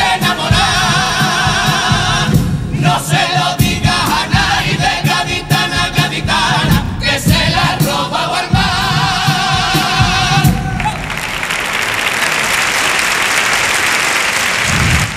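All-male carnival comparsa chorus singing the final refrain in harmony over strummed Spanish guitars, ending the song about eleven seconds in. The theatre audience then applauds.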